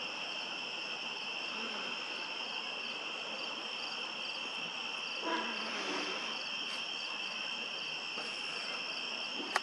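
Night chorus of crickets and other insects: a steady high trill, with a higher chirp repeating about twice a second. A short, louder sound comes about five seconds in.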